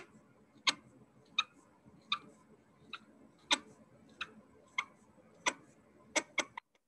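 Felt-tip marker ticking and squeaking against a whiteboard as small circles are drawn one after another, in short sharp ticks a little under two a second, stopping abruptly near the end.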